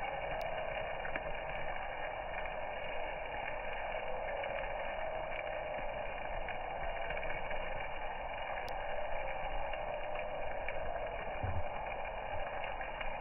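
Steak sizzling on a campfire grill grate over open flames: a steady hiss with faint scattered crackles from the fire.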